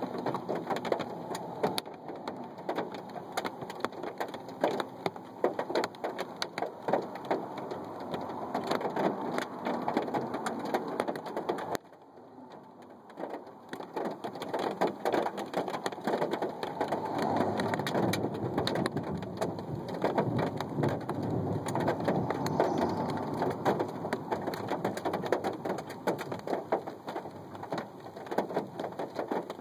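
Storm rain and hail hitting a hard surface close to the microphone: a dense, steady run of sharp ticks over a rushing hiss, dropping away for about two seconds near the middle before coming back.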